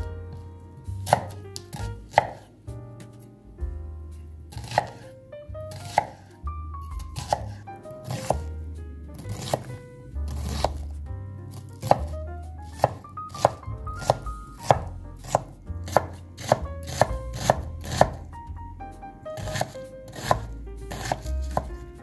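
Kitchen knife chopping an onion on a wooden cutting board: sharp knocks of the blade on the board, a few widely spaced at first, then quicker runs of strikes in the second half.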